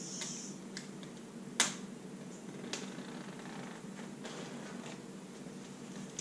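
Sharp clicks and light plastic crackles from handling a sealed MacBook Pro box and picking at its plastic wrapping, with one loud click about a second and a half in. A steady low hum runs underneath.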